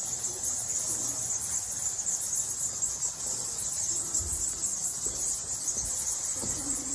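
A colony of bats roosting in a cave, chittering in a continuous shrill, high-pitched din, with a couple of faint low knocks past the middle.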